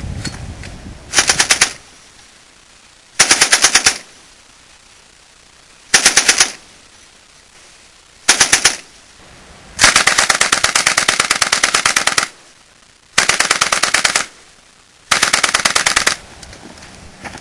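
Automatic gunfire in seven bursts of rapid shots, most about half a second to a second long and one held for about two seconds, with short pauses between.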